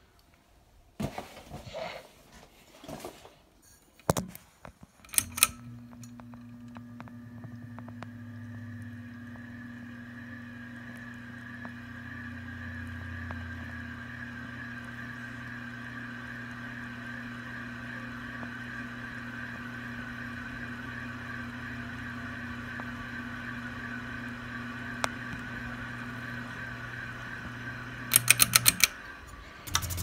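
Heritage Landsdale ceiling fan motor running, a steady electrical hum heard up close with a faint wavering whine above it, starting about five seconds in after a few scattered knocks. A quick run of clicks comes near the end.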